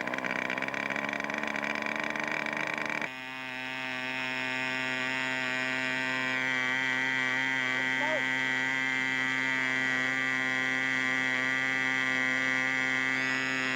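Quarter-scale model aircraft's Super Tigre 3000 two-stroke glow engine running on a ground run. For about the first three seconds its pitch climbs unevenly, then it settles into a steady, even drone that stops abruptly near the end.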